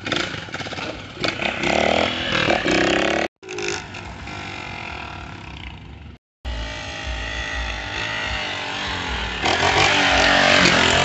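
Motorcycle engine revving up and down as the bike is held in wheelies, broken by two abrupt cuts. Near the end it is revved hardest.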